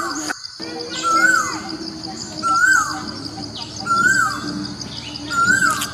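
A bird repeating the same rising-then-falling call about every one and a half seconds, with higher twittering over a steady high-pitched hum.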